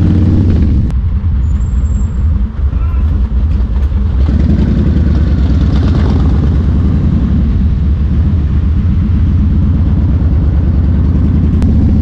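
Yamaha XV1600 Road Star's big air-cooled V-twin running under way, heard from the rider's seat. The engine eases off about a second in and pulls harder again from about four seconds in.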